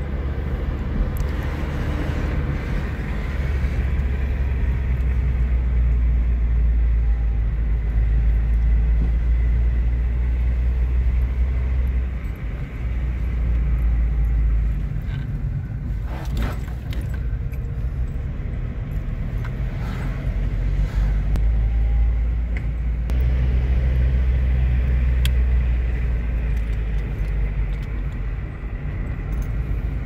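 Car being driven on a road, heard from inside the cabin: a steady low rumble of engine and tyres that eases off twice, with a few brief clicks near the middle.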